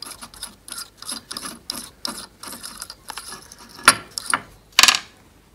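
A hand tool turning in a freshly fitted Helicoil threaded insert in a carbon fibre plate, making a rapid run of small clicks, with two sharper, louder clicks near the end.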